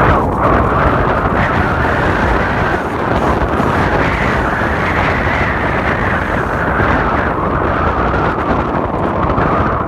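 Wind gusting at 45–50 mph buffeting the microphone in a loud, unbroken rush.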